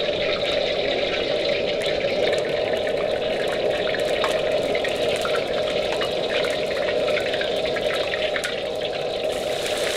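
Kitchen tap running steadily into a sink, with small splashing ticks.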